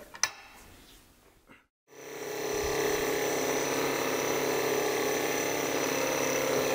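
A single click just after the start. About two seconds in, the inverter-driven electric motor of a shaper milling head, on newly fitted taper bearings, runs steadily with a hum and a high whine while an end mill cuts a brass bar.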